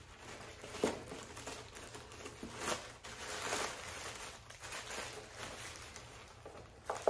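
Clear plastic bag crinkling and rustling as hands rummage in it and pull clothing out, in irregular crackles with a sharper one about a second in.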